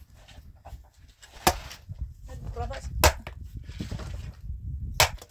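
Three sharp knocks on wood, a second and a half to two seconds apart, over a low rumble.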